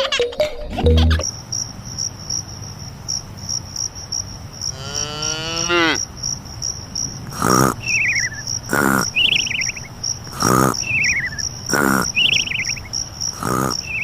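Crickets chirping in a steady, evenly pulsing high trill. Short falling chirps and a sharp knock-like sound recur about every second and a half, and a long falling whistle-like glide comes about five seconds in.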